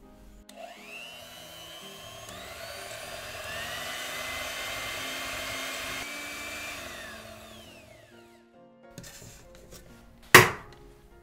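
Electric hand mixer beating creamed butter in a glass bowl: the motor whines up to speed, runs for about seven seconds and winds down. Near the end, an egg cracks sharply once against the edge of a bowl, the loudest sound here, with light background music throughout.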